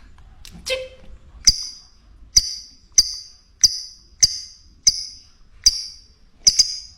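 Lovebird giving a run of short, sharp high chirps, about one and a half a second, repeated evenly.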